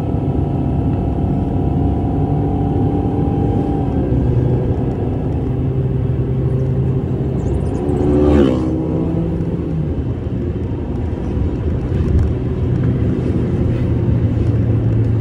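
Car engine and tyre rumble heard from inside the cabin while driving, the engine note shifting about four seconds in. About eight seconds in a vehicle passes close by, briefly louder with its pitch falling.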